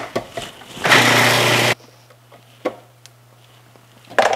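Food processor run in one short pulse of about a second, its motor and blade churning sunflower seeds and cooked mushrooms into a paste, then cutting off suddenly. A few sharp knocks follow, the loudest near the end.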